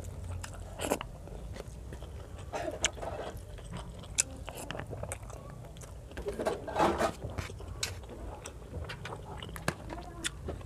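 Close-miked chewing and wet mouth sounds of a person eating rice and fried fish by hand, with scattered sharp clicks and small crunches. A denser burst of chewing noise comes about seven seconds in.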